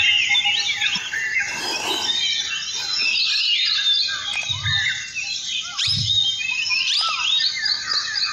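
Several songbirds chirping and calling at once: a busy chorus of short, overlapping chirps and whistled notes, rising and falling in pitch.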